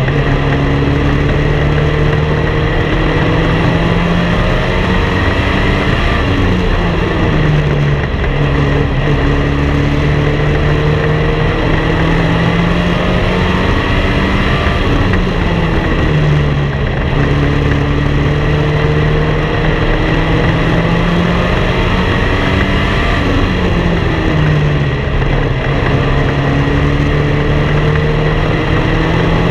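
Race car engine running hard on a paved oval, heard onboard with wind noise on the microphone. Its pitch holds high on the straights, drops as the driver lifts for each turn and climbs back, about every eight seconds.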